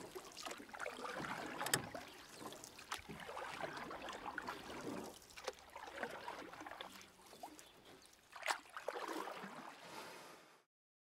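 Faint shoreline ambience of water and wind, an irregular wash with scattered clicks, cutting off abruptly to silence near the end.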